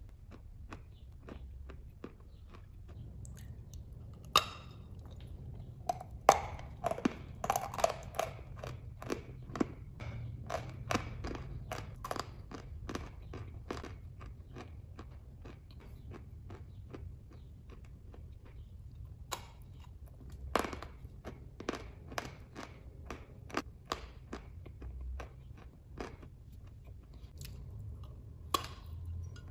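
A dry block of white chalk being chewed and crunched in the mouth: irregular sharp crunches and crackles, thickest in the first half, with a fresh bite near the end.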